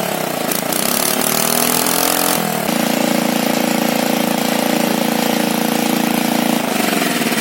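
Restored Greaves MK12 engine running. Its speed wavers up and down, holds steady for about four seconds, then changes again near the end.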